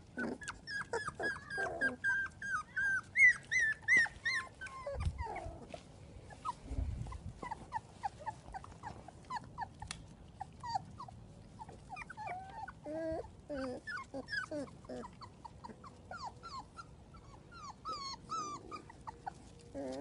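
Shar-pei puppies whimpering in short high whines, a dense run of them in the first few seconds and scattered ones after.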